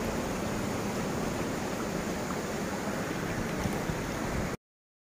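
Steady rushing of a shallow, rocky river flowing, which cuts off suddenly near the end.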